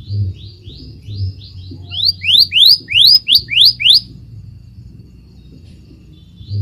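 Scarlet minivet singing: a run of quick upward-sweeping whistles, softer at first and then louder for about two seconds. A pause of a couple of seconds follows, and the phrase starts again at the very end.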